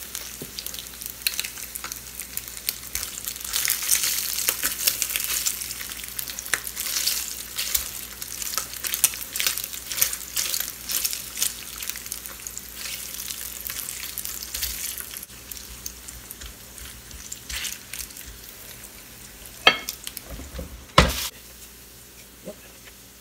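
Thick-cut bacon frying on the ribbed plate of an electric panini grill on high heat: a steady sizzle full of quick fat pops, busiest in the first half and thinning out later. Two sharp knocks come near the end.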